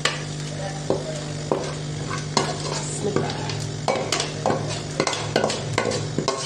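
Metal spoon scraping and knocking against a steel pan as thick spiced meat masala is scraped out and slides into a pot of hot broth: irregular scrapes and clinks, about one or two a second, over a steady low hum.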